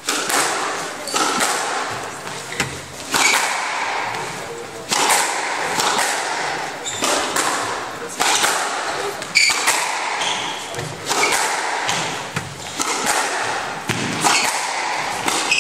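Squash rally: the ball cracking off the rackets and the court walls about once every second or so, each hit echoing briefly in the enclosed court, with a few short high squeaks in between.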